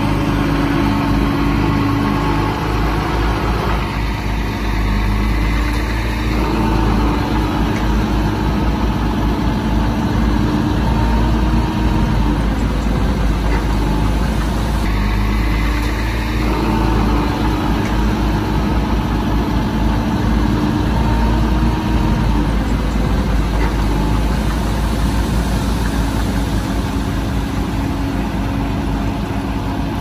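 Heavy machinery diesel engine running steadily, its note shifting briefly twice, about four and fifteen seconds in.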